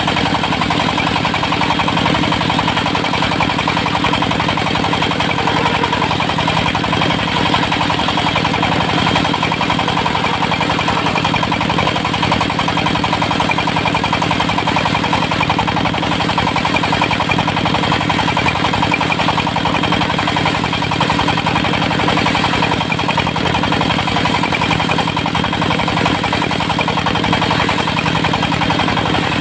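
Diesel engine of a portable circular sawmill running at a steady speed, with no change in pitch or level.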